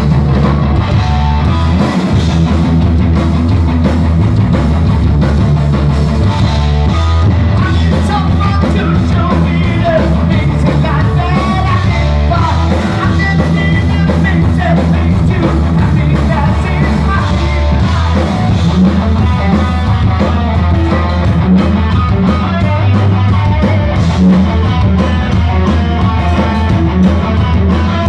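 Live rock band playing loud and without a break: distorted electric guitar riff over bass and drums.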